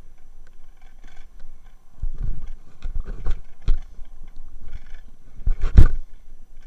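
Rolling noise and jolts of a dog-drawn dryland rig travelling at about 20 km/h over a rough gravel track: a low rumble, then from about two seconds in a run of uneven thumps and knocks, the loudest near the end.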